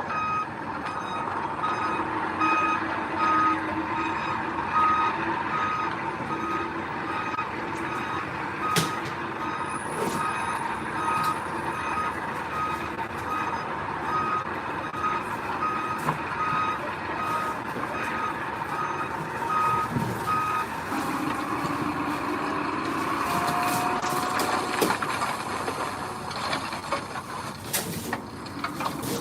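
A heavy earthmoving vehicle's reversing alarm beeps steadily over its running diesel engine, then falls silent about two-thirds of the way through while the engine keeps running.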